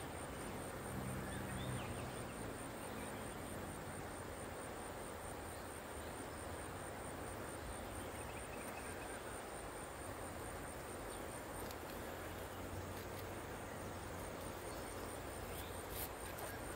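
A steady, high-pitched insect trill made of rapid even pulses, over a constant outdoor hiss. A few faint clicks come near the end.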